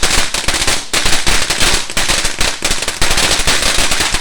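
Fireworks going off in a loud, rapid, unbroken string of cracks and pops, like a string of firecrackers.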